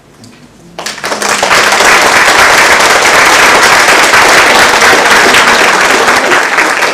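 Audience applauding, starting suddenly about a second in and staying loud and steady.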